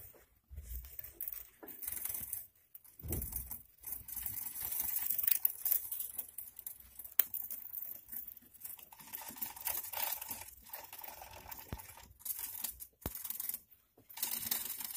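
Gerbils scrabbling and rustling through loose wood-shaving and paper bedding, an irregular rustle that stops and starts, with a few sharp clicks.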